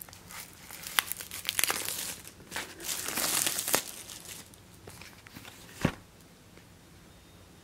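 Plastic shrink wrap crinkling and tearing as it is pulled off a boxed set, in dense crackles that are busiest around three seconds in. A single dull thump comes near six seconds in.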